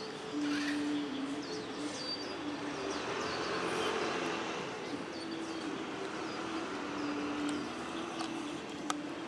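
White-eyes calling with many short, high, falling chirps, over a low steady hum of city traffic.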